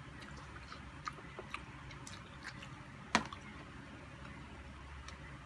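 Close-up eating sounds: wet chewing and mouth smacks, with scattered small clicks and one sharp click about three seconds in.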